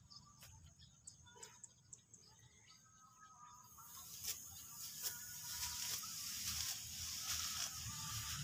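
Dry, ripe rice stalks rustling and snapping as they are cut by hand with a sickle: crisp cracks and swishes. The rustling grows much louder and denser about three and a half seconds in.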